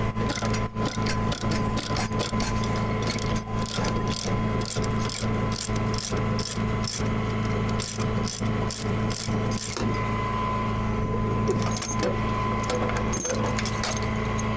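Ratchet chain binder being cranked loose, its pawl clicking about three times a second for some ten seconds before the clicking thins out. Under it is the steady hum of an idling truck engine.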